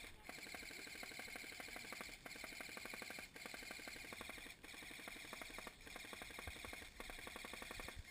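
Airsoft electric rifle firing long full-auto bursts: a rapid, even clatter over a motor whine, broken by brief pauses about once a second.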